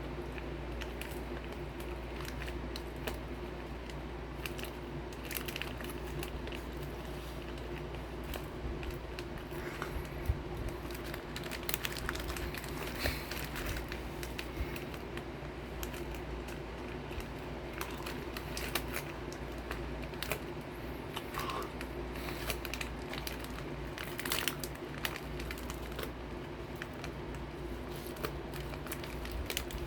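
Crinkling of a snack wrapper and scattered crunches and clicks from eating Gosomi crackers, over a steady low hum.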